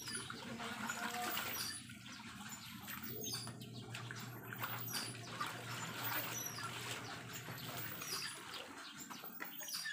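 Clothes being hand-washed in a basin of soapy water: irregular sloshing and rubbing as the fabric is scrubbed, then water streaming back into the basin as a garment is lifted and wrung out near the end. Birds chirp faintly in the background.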